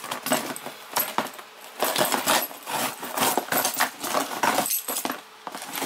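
A package being handled and pulled open by hand close to the microphone: a dense run of irregular clicks, crinkles and light clatter.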